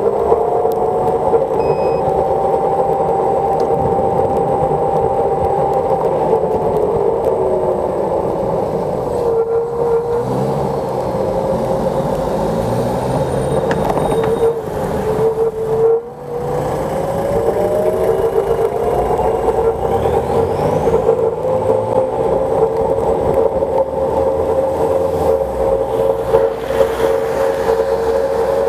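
Xiaomi M365 electric scooter riding on a wet road. Its front hub motor whines in a pitch that follows the speed: it falls as the scooter slows, dips about halfway through, and rises again as it speeds up. Under it runs a steady noise of wind and tyres.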